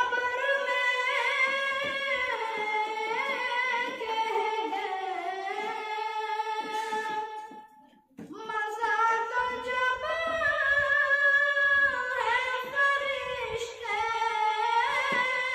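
A boy singing a naat unaccompanied, in long, held, ornamented notes. Two phrases, with a short breath break about eight seconds in.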